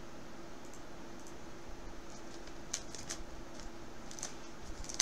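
Faint plastic rustling and a few light clicks as a trading card in a hard plastic case and soft plastic sleeve is handled, over a steady low hum, with a sharper click at the very end.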